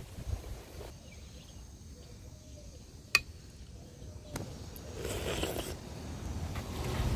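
A metal spoon clinks once, sharply, against a ceramic soup plate about three seconds in, over a quiet background hiss. A louder rustling noise builds up near the end.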